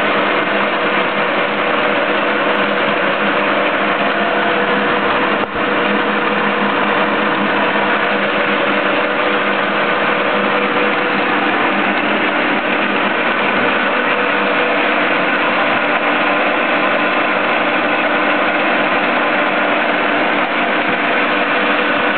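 Milling machine's electric motor and spindle head running steadily without load on a test run: a loud, even machine hum with several steady tones in it. It dips briefly once about five and a half seconds in.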